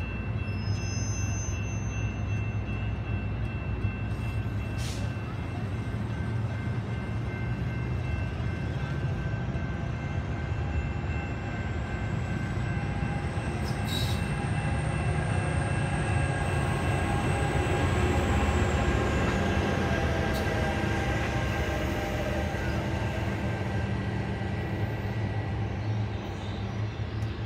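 exo commuter train of bilevel coaches departing and rolling past, a steady rumble of wheels on rail with a faint high whine that swells and fades in the middle. It is loudest about two-thirds through as the locomotive at the end of the train goes by.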